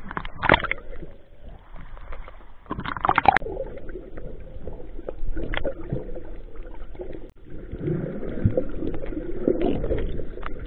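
Sea water sloshing and gurgling in uneven surges around a swimmer's action camera.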